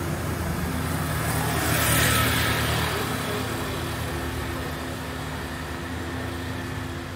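Street traffic: a motor vehicle passes close by, loudest about two seconds in, then fades away under a steady hum of traffic.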